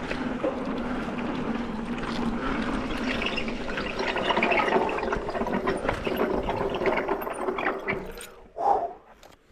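Mountain bike riding along a dirt singletrack trail: steady tyre noise on the dirt with small rattles and clicks from the bike. It drops away near the end.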